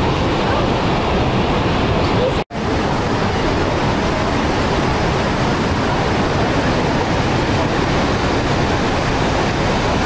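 Steady, loud rush of water from Niagara Falls, an even noise with no pitch or rhythm. It cuts out for an instant about two and a half seconds in, then resumes unchanged.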